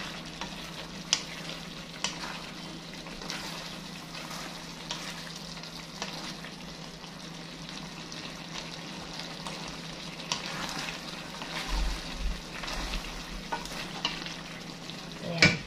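Chicken and vegetable sauté sizzling in a nonstick wok as a wooden spatula stirs it, with scattered light clicks of the spatula against the pan and a louder clatter near the end.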